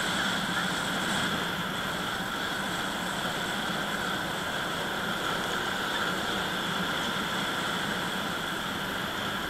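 Steady engine and road-and-wind noise from the vehicle carrying the camera as it drives along at an even pace, with an unchanging hum and hiss throughout.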